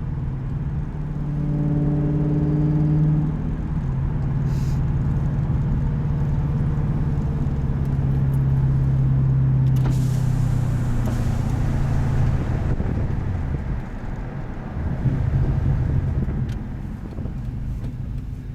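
Pontiac GTO's LS2 V8 heard from inside the cabin through a Spintech cat-back exhaust with Kooks long-tube headers, a deep low exhaust drone while driving. The engine note steps up and down with throttle and shifts, easing off about three-quarters of the way through and picking up again shortly after.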